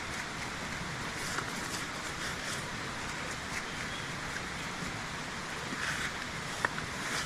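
Steady rushing outdoor noise, even and hiss-like, with a few faint, short high sounds, one a little after six seconds in.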